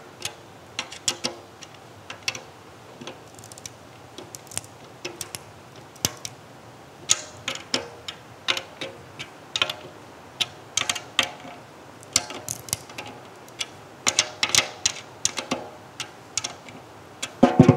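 Drum key cranking the tension rods of a brass snare drum far past finger tight, with irregular sharp cracks and ticks as the glue on the new drumhead breaks. A short ring from the drum follows some of the cracks.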